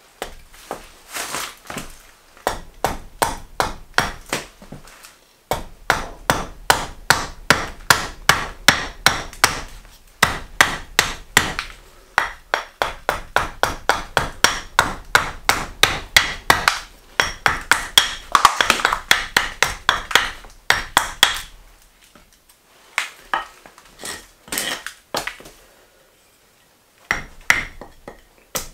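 Julia Kalthoff carving axe hewing a green maple spoon blank on a wooden chopping block: quick, crisp chopping strikes about three a second, with a few short pauses. The strikes thin out to scattered short runs near the end.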